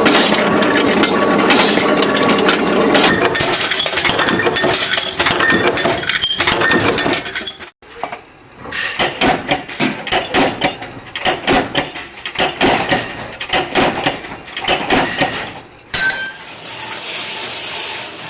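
Workshop noise in three parts: first a dense clatter, then repeated sharp knocks and clinks at about two to three a second, and near the end a steady hiss.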